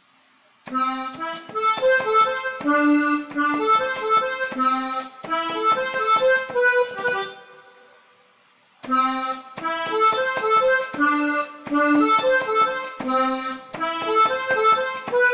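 Electronic keyboard with an accordion-like voice playing a quick cumbia melody line, the song's main figure. The phrase is played twice, with a pause of about a second and a half between.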